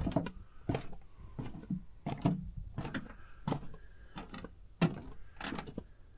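Footsteps walking along a wooden plank boardwalk: a steady run of short hollow knocks, about two steps a second.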